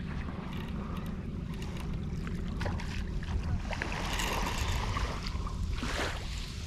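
Wind rumbling on the microphone at the water's edge, with a hooked fluke (summer flounder) splashing at the surface in the shallows about four seconds in and a short splash again near the end.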